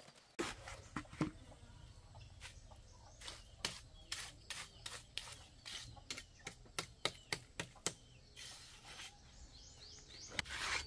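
Mason's trowel scraping and tapping on wet cement as it is spread and smoothed along a pathway edge, in a quick run of short strokes, about two or three a second.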